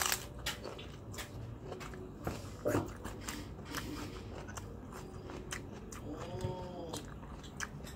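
A person chewing a hand-fed mouthful of rice with sambal and raw vegetables, close to the microphone, with many small crisp crunches. A short rising-and-falling tone sounds about six seconds in.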